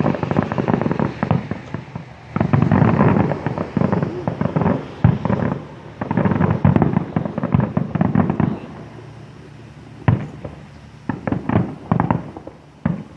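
Fireworks going off in dense crackling volleys, then a handful of separate sharp bangs near the end.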